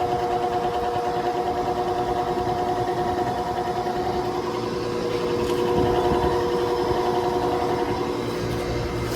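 Gemini air-conditioner condensing unit running with a steady buzzing hum and several held tones over the fan noise, which the owner takes for the sign of a bad run capacitor.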